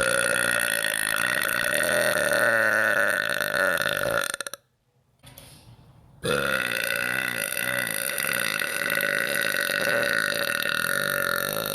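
Two long, loud burps from a woman. The first lasts about four seconds and stops abruptly; after a short pause the second starts and holds for about six seconds.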